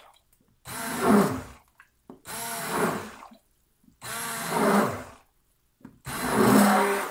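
Stick blender run in four short pulses of about a second each with pauses between, its motor pitch sliding as it spins up and winds down, blending soap batter to break up clumps of powdered goat's milk.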